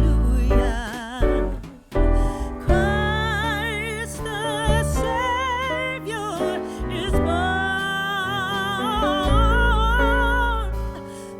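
Music: a voice singing long, wavering held notes over accompaniment with a strong bass.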